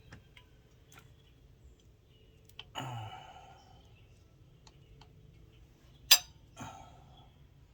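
Hand tools working on the engine's head bolts: scattered metallic clicks and clinks, a short rasping scrape with a dull knock about three seconds in, and a sharp metal click about six seconds in, the loudest sound, with a softer one just after.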